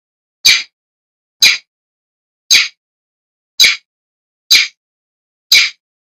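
Long-tailed shrike giving six short, harsh calls, evenly spaced about one a second.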